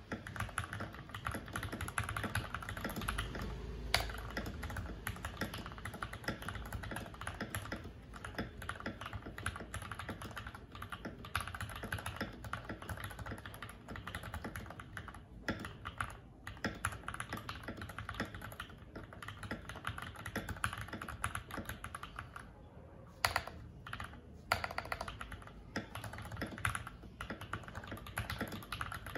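Fast continuous typing on a mechanical keyboard fitted with factory-lubed Gateron Pro Milky Yellow linear switches, a steady stream of keystrokes that breaks off briefly about 22 seconds in, then resumes as sparser, separate key presses.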